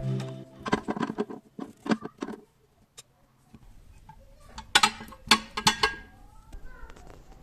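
Household items being handled, giving light clicks and knocks: a cluster at the start, a single click about three seconds in, and a louder cluster a little later. Faint brief squeaks follow.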